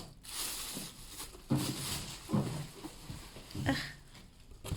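Cardboard and packing material rustling and scraping as a microwave oven is worked out of its box, with a few short grunts of effort.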